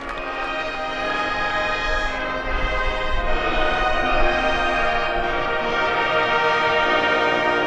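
Combined high school marching bands playing sustained brass chords. The chords grow louder over the first few seconds and change harmony about three seconds in.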